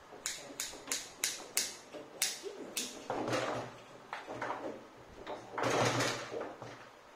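Foosball table in play: a quick run of sharp clacks, about three a second, as the ball is knocked between the plastic players. Rougher rattling of rods and ball follows about three seconds in and again near six seconds.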